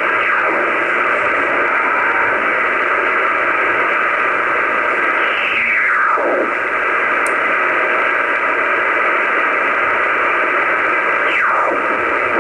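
Shortwave receiver hissing with band static while tuned through an empty stretch of the band, with no station coming through. Three whistles fall in pitch, near the start, about halfway and near the end, as the tuning sweeps past carriers.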